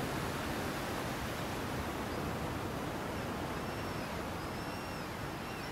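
Rough sea surging and breaking against volcanic rocks in a narrow inlet: a steady rush of surf. Faint high chirps are heard over it in the second half.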